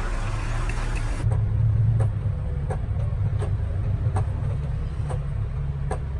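Diesel engine of heavy construction machinery running steadily with a low hum, with faint regular clicks about every 0.7 seconds.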